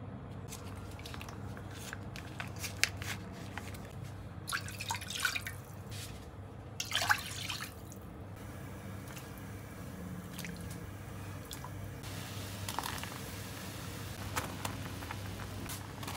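Kitchen preparation sounds: light clicks and knocks of utensils and containers, with liquid being poured or dripping in the middle, over a steady low hum; near the end a soft, even bubbling-like hiss sets in.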